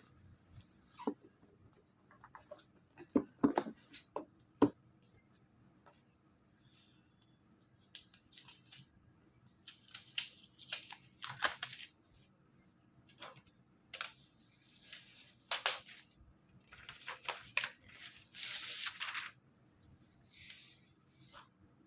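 Packaging being handled and opened: a few sharp taps and clicks, then repeated bursts of tearing and rustling, the longest one near the end.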